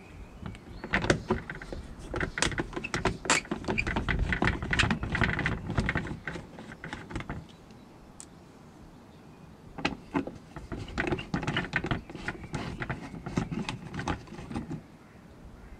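Hand screwdriver with a Torx T25 bit unscrewing the screws that hold a plastic engine undertray, heard as two spells of quick clicking and scraping, about seven and five seconds long.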